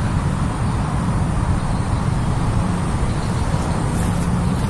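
Steady low rumble of road traffic from a nearby highway, with no single vehicle standing out.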